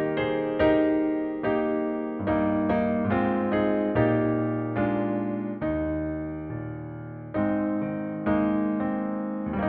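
Solo keyboard music: slow chords struck one after another, each ringing out and fading before the next, the strikes spacing out a little toward the end.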